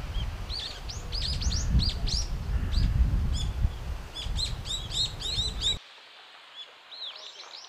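Brown-eared bulbuls calling: a rapid run of short, sharp chirps rising and falling in pitch, over wind rumbling on the microphone. About six seconds in the wind noise cuts off abruptly and a few fainter calls go on.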